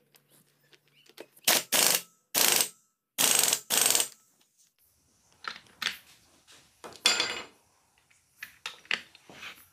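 Clutch-fitting tool being worked by hand to press the clutch plate onto the shaft of a Hero HF Deluxe engine: a series of short metallic strokes, four loud ones in the first four seconds, then lighter, quicker ones.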